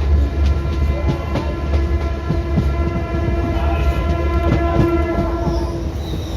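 Indian Railways train running, with a deep steady rumble and wheels clicking over rail joints. A horn sounds one long steady note for about five seconds.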